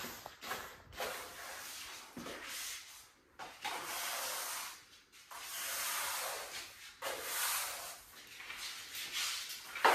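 A bristle broom sweeping dust across a hard plank floor in repeated strokes, each a swishing hiss lasting a second or two with short pauses between them.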